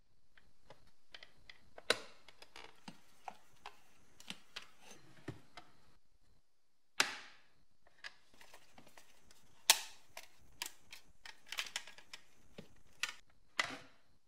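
Irregular sharp plastic clicks and taps from a car wing mirror being taken apart by hand with a screwdriver, as the small toothed cog holding the mirror glass is turned to free the glass. A few louder snaps stand out among the lighter ticks.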